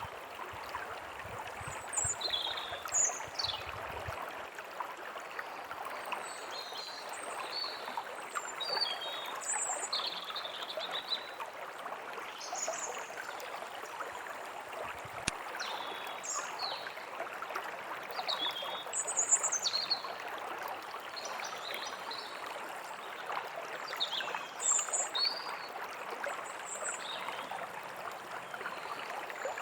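A forest stream flowing steadily, with birds chirping in short, high calls scattered throughout.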